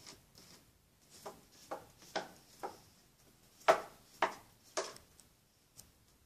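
A cat's paws scraping at cat litter and its plastic litter box: about seven scratchy strokes roughly half a second apart, the last three louder.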